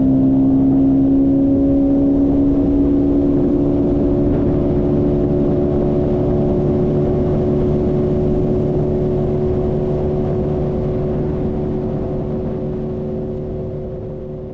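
An engine running steadily at an even pitch, fading out gradually near the end.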